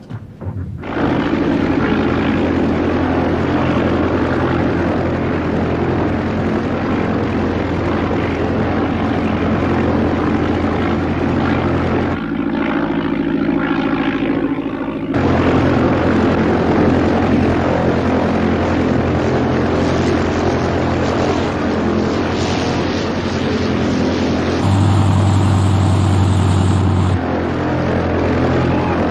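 Propeller aircraft's piston engine running steadily, with its lowest tone falling away for a few seconds about twelve seconds in and coming back louder for a couple of seconds near the end.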